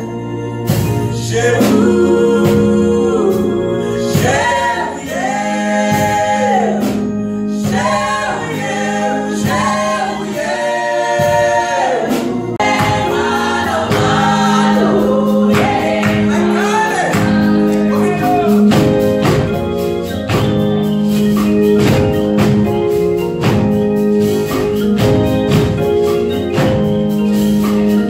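A man and two women singing a melody together in harmony, over a held low note. About halfway through, a steady beat of hand-drum strokes comes in under the voices.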